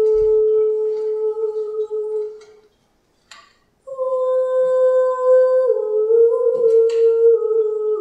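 A voice humming long held notes. The first note fades out about a third of the way in; after a brief silence broken by a single click, the humming starts again on a slightly higher note and steps down in pitch a little past halfway.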